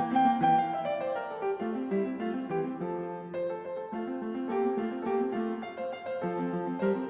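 Background instrumental piano music, notes struck in quick repeated figures.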